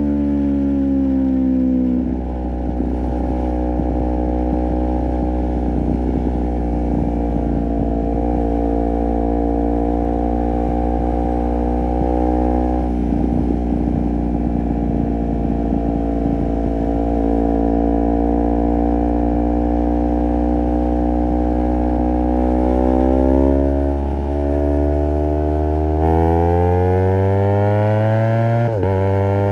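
Honda CBR250RR parallel-twin engine running through a Project 79 slip-on exhaust while riding, its note holding fairly steady and drifting slowly down and up. There is a sudden drop in the note about two seconds in, and quick dips and rises in pitch near the end.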